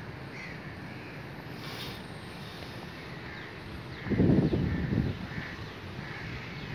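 Crows cawing now and then over a steady low background rush, with a louder low rumbling burst about four seconds in that lasts about a second.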